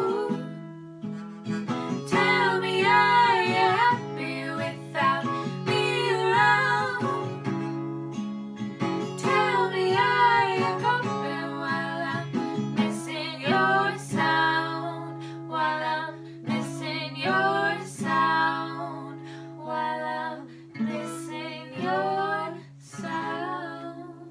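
A female singer and an acoustic guitar performing the last part of a song. The sung phrases grow shorter and sparser while the guitar holds its notes, and the sound fades near the end.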